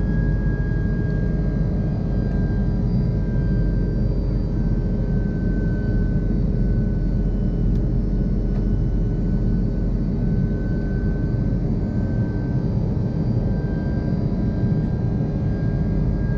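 Cabin noise inside an Airbus A330-200 in flight: a steady low rumble of the jet engines and airflow, with a thin whine above it that wavers slightly in pitch.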